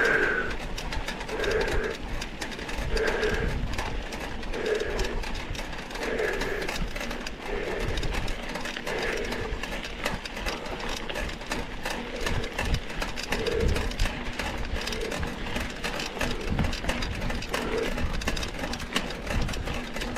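Mountain-bike ride heard from a bike-mounted camera: steady wind and tyre rumble, with a soft rhythmic sound repeating about every one and a half seconds.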